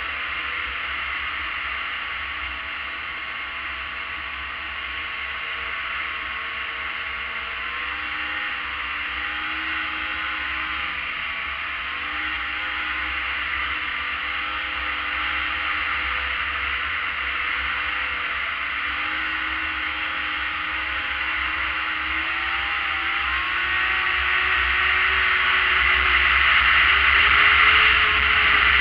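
Arctic Cat ZRT600 three-cylinder snowmobile engine running at speed, its pitch wavering with the throttle, under a steady rush of wind. Over the last few seconds it grows louder and rises in pitch as the sled speeds up.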